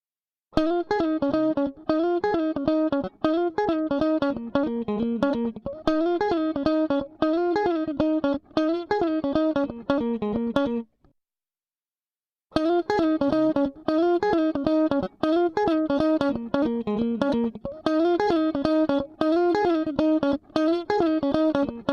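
A guitar playing a quick phrase of picked single notes, heard twice with a short silent gap about halfway; a test passage played back through a studio compressor for comparison.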